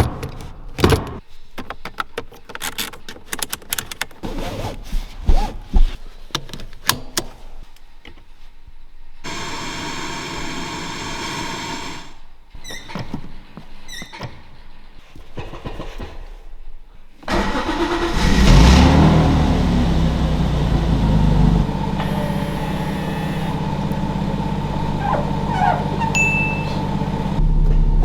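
Lexus IS200 SportCross's 2.0-litre straight-six starting up after a series of clicks and knocks, catching suddenly about two thirds of the way through and then idling steadily.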